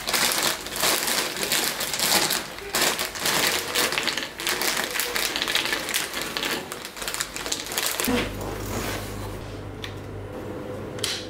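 Plastic snack bag crinkling as it is opened and shaken, with pretzels rattling out onto a wooden dish. About eight seconds in this gives way to a steady low electrical hum from a guitar amplifier and pedal rig, with one sharp click near the end.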